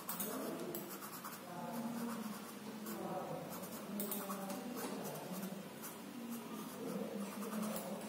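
Red coloured pencil scratching on sketchbook paper in repeated short strokes while sketching the outline of a figure.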